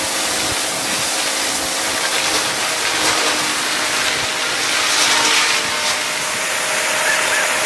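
Tractor-driven hammer mill grinding dry corn stalks into fodder: a loud, steady rushing machine noise with the tractor engine's hum beneath it.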